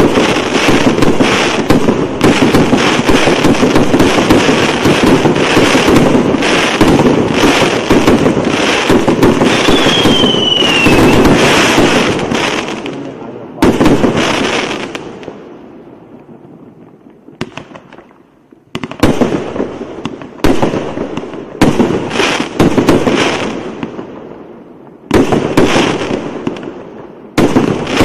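A 215-shot fireworks cake firing: a dense, rapid barrage of launches and bursts for about the first thirteen seconds, with a short falling whistle about ten seconds in. Then it thins to single loud bursts every one to two seconds, each with a fading tail.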